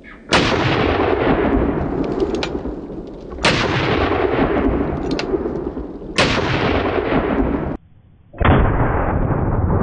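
Four shots from a Magnum Research BFR single-action revolver chambered in .30-30 Winchester, about three seconds apart. Each is a sudden blast drawn out into a long fading boom, and the last one is more muffled.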